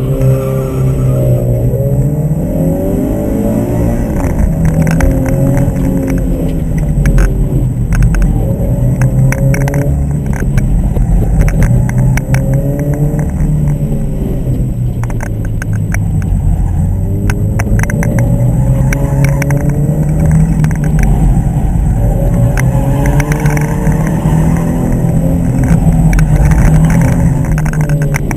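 Subaru BRZ's 2.0-litre flat-four engine heard from inside the cabin, revving up and dropping back again and again as the car is driven hard, accelerating and lifting between corners.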